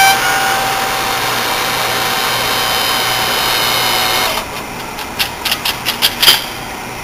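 Powered hydraulic hose crimper running as it crimps a fitting onto a new hydraulic pressure hose: a steady pump-and-motor whine that stops abruptly about four and a half seconds in, followed by several sharp clicks and knocks.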